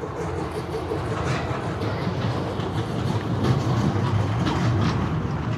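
Rumbling, clattering sound of wheels rolling past over a hard surface, building up and then easing off.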